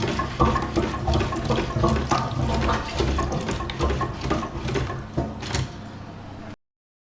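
Water running and splashing in a toilet cistern, with knocks and clicks from handling its parts. It cuts off suddenly near the end.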